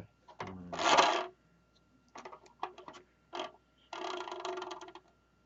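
Plastic body shell of a Kyosho nitro RC buggy rubbing against the turning spur gear: a whirring scrape in two stretches, the second steadier, with scattered clicks of handling in between.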